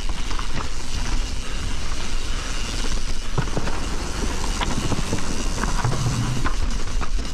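Privateer 161 enduro mountain bike riding down a wet trail: steady wind rumble on the microphone and tyre noise over the ground, with the bike rattling and knocking now and then over rough ground.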